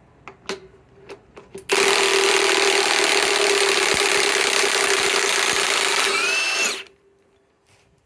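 A few clicks, then about two seconds in a cordless drill driver starts driving a large lag bolt into wood, running steadily for about five seconds. Its pitch rises just before it stops.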